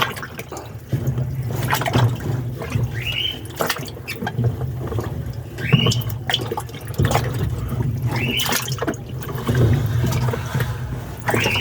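Washing machine agitating a load in water: water sloshing over a low motor hum that swells and eases in a steady rhythm, with a short squeak each time the cycle turns, about every two and a half seconds.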